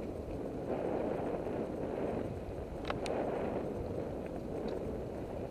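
Bicycle tyres rolling over a dirt road covered in dry leaves, with the bike rattling, heard from a helmet-mounted camera; a sharp click about three seconds in.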